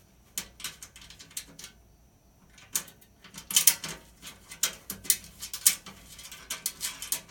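Irregular clicks and metallic taps of hand tools and bolts as stainless button-head bolts are fitted to an underbody air scoop panel, bunched into a few busy clusters with short pauses between them.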